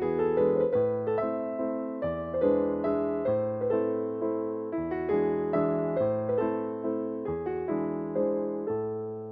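Background music: piano or electric piano playing a steady, gentle pattern of repeated notes over a changing bass line.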